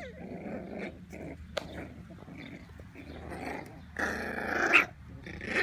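Jack Russell puppies growling as they play-fight, in short rough spurts, loudest about four seconds in.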